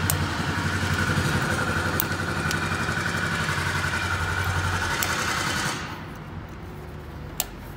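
A motor runs steadily with a held high note over a low hum, then cuts off abruptly about six seconds in; a single sharp click follows near the end.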